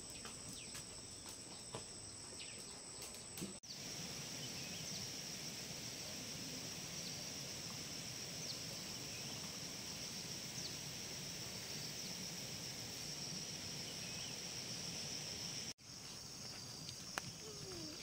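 Steady outdoor chorus of insects, a continuous high buzz over a low background hiss, changing abruptly about three and a half seconds in and again near the end.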